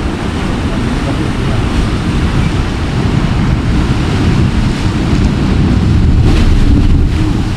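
Sea surf washing against coastal rocks, heavily overlaid by wind buffeting the microphone in a low rumble; it grows somewhat louder near the end.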